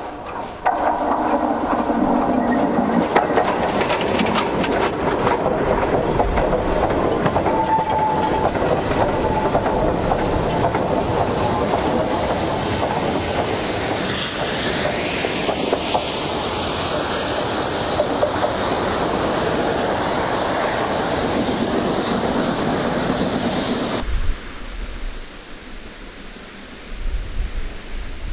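Small industrial saddle-tank steam locomotive passing close by, its wheels clattering over the rails, with a hiss of steam. About 24 seconds in it cuts to a much quieter, more distant sound.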